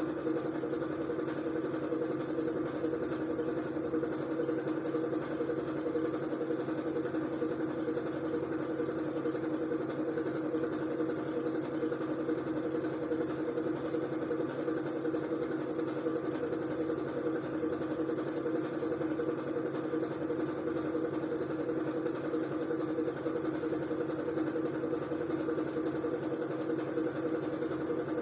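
Steady mechanical drone, like a motor or engine running without change, with a few fixed hum tones.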